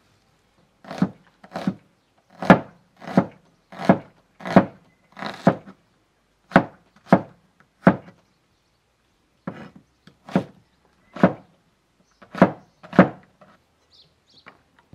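Heavy chopping blows of a blade into wood, about fifteen strikes, one every half second to a second, in uneven runs with short pauses.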